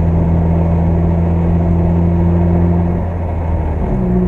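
Car engine running under way, heard from inside the cabin, a steady low drone with road noise. About three seconds in the engine note eases off and drops in level, then picks up again at a slightly higher pitch near the end.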